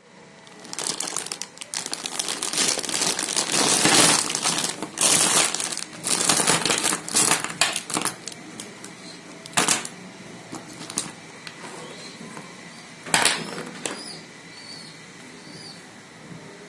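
Clear plastic bag crinkling while small metal DC toy motors clatter against each other and onto a table as they are tipped out and scooped up by hand. The rustle and clatter are dense for the first several seconds, then settle into a few separate clicks and knocks as single motors are handled.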